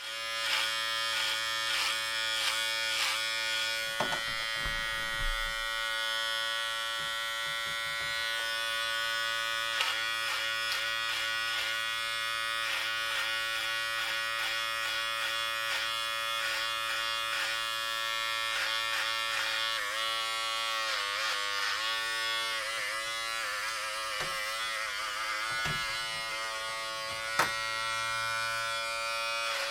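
Electric hair clippers running and cutting hair: a steady buzz whose pitch wavers and dips between about 20 and 26 seconds, with a few sharp clicks.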